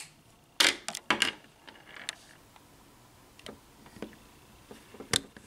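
Sharp plastic clicks and taps as crayon pieces are pressed through the flaps into the cap of a Crayola Crayon Melter pen. There is a quick cluster of clicks in the first second and a half, a few faint taps, and one sharp click near the end.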